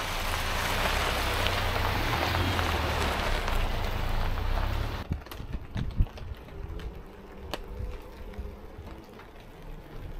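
A Ford Ranger pickup runs on a dirt track, a loud steady engine and tyre noise with a low rumble, which cuts off about five seconds in. Then rain drips onto a taut tarp: a much quieter patter with scattered sharp taps.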